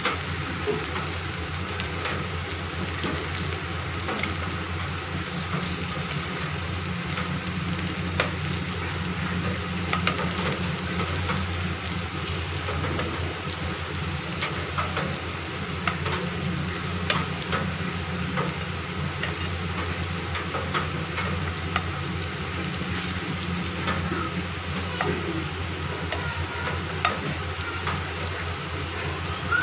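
Aluvadi pieces of colocasia leaf and mixed dal shallow-frying in hot oil in a pan: a steady sizzle full of small crackles and pops, with a spatula stirring and turning them. A steady low hum runs underneath.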